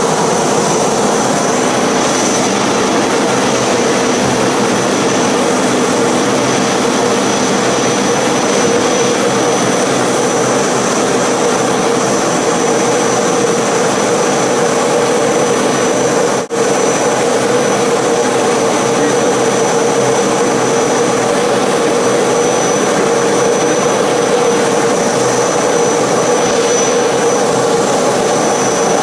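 Aero L-29 Delfín's single turbojet engine running steadily: a loud, even rush with a constant high-pitched whine over it. The sound dips out for an instant about sixteen seconds in.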